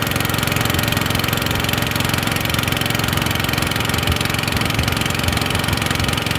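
Small combustion engine running steadily at a fairly low speed, with a rapid, even firing pulse.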